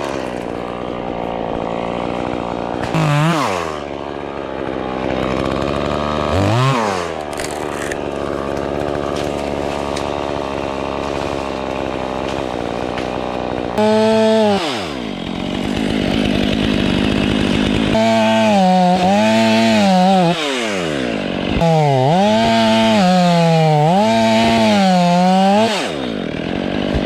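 Two-stroke chainsaw running, its engine revving up and dropping back again and again. It holds a steadier speed through the first half, then gives several quick rev swells in the last several seconds.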